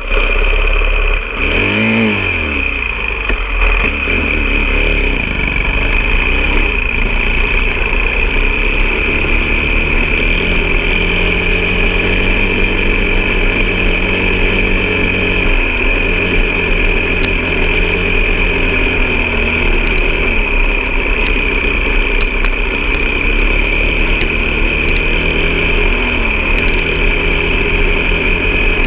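Vehicle engine running while driving off-road, with a brief rev up and back down about two seconds in, then a fairly steady drone.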